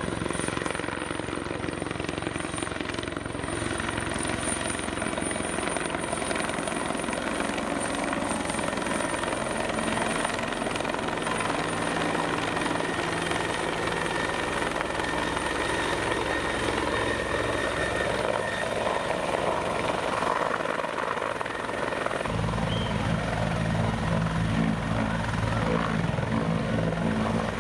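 Helicopter flying low overhead and coming in to land. A steady rotor and turbine noise carries a thin high turbine whine. About three quarters of the way through it grows deeper and heavier as the helicopter settles on the pad.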